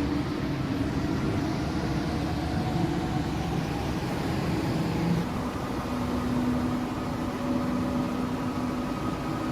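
Steady running noise of an NS-16 metro train heard from inside the car, with a few faint held tones from the drive coming and going.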